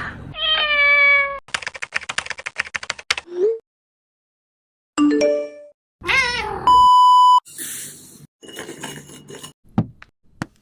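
A cat meowing, then a fast run of clicks, a second meow about six seconds in, and right after it a loud, steady electronic beep lasting under a second.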